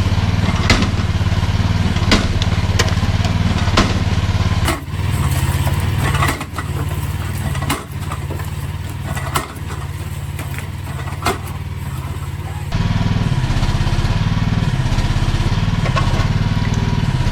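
Mini excavator's small engine running steadily, with repeated sharp knocks and clanks as the bucket strikes the cinder-block wall. The engine sound drops lower and thinner for several seconds in the middle, then comes back.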